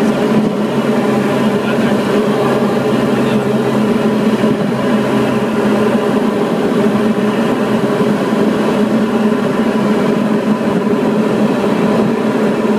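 Diamond DA40's engine and propeller droning steadily, heard from inside the cockpit.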